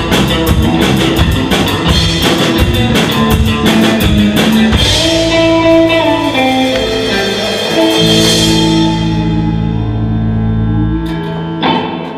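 Live instrumental surf rock on electric guitar, electric bass and drum kit. The full band plays until about five seconds in, when the drums stop and guitar and bass notes ring on; a final low chord is held for about three seconds and cuts off near the end, the close of the song.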